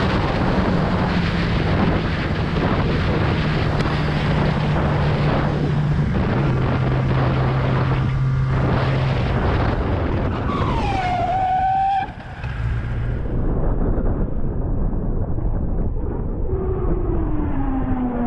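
Sportbike riding with heavy wind rush on the rider's camera over a steady engine note, which drops in steps as the bike slows toward an intersection. About two-thirds of the way in a short falling squeal sounds, then the sound suddenly drops and turns duller, and near the end a lower tone slides down in pitch.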